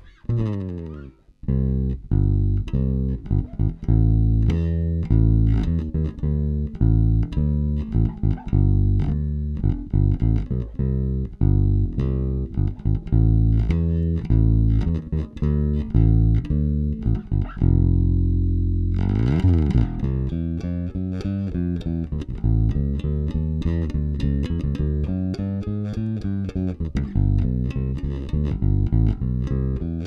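Squier Vintage Modified Jaguar Bass Special played fingerstyle through its bridge Jazz Bass pickup alone, with volume and tone fully up: a continuous run of plucked bass notes. It opens with a downward slide, and about two-thirds of the way through a held note gives way to slides up and down the neck.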